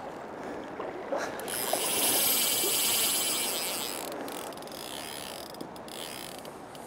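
Fly reel's click-and-pawl drag buzzing for about two and a half seconds, swelling and then fading, as a hooked coho salmon is played on the line. A steady rush of river water runs underneath.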